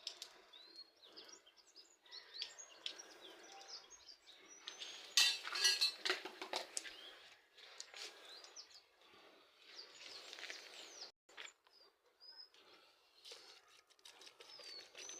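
Small birds chirping in short high calls over faint outdoor background noise, with a brief run of sharp clicks and knocks about five seconds in.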